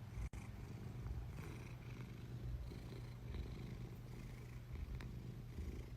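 Domestic cat purring steadily, a faint low rumble.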